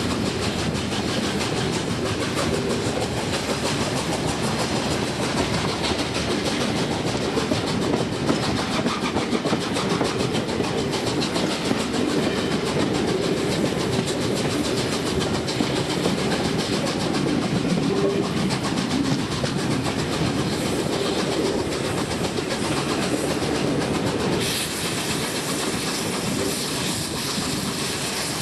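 Steam excursion train hauled by A1 Pacific 60163 Tornado running past at speed, its wheels clattering over the rail joints. A higher hiss joins near the end.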